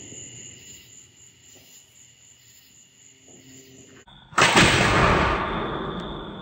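Insects trilling steadily, then about four seconds in a single loud bang as a 37mm underbarrel launcher fires a mortar firework shell off its stationary firing pin, the report dying away over a couple of seconds.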